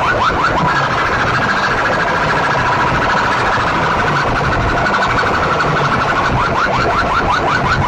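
Electronic siren-style sound effect blasted through a competition DJ sound box's stacked horn speakers: rapid repeated rising chirps, about seven a second, that give way about a second in to a steady warbling tone, then come back near the end.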